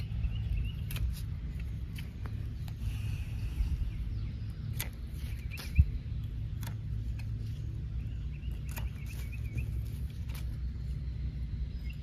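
Hand pruners snipping off the lower leaves of a tomato plant: several sharp clicks spread unevenly through, the sharpest just before midway, over a steady low rumble.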